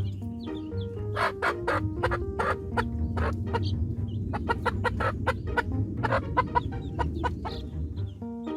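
Playful background music: a bouncy melody of short notes stepping up and down over a steady bass beat, with sharp percussive strokes.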